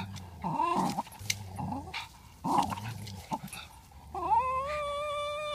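Parson Russell Terrier and Greater Swiss Mountain Dog growling in a play tug-of-war over a rope toy. Low growls come in stretches, broken by short yips and whines, and a long steady whine starts about four seconds in.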